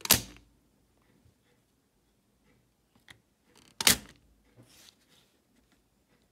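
Spring-loaded desoldering pump firing twice, about four seconds apart: each a sharp snap as the plunger is released to suck molten solder off the cassette motor's terminal pads. A few faint clicks come just before the second snap.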